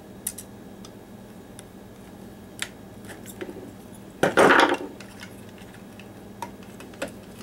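Hand tools clicking as the wires inside an opened cordless drill are worked with wire strippers and pliers, with one louder, half-second metal clatter a little past halfway as the wire strippers are set down on the wooden workbench.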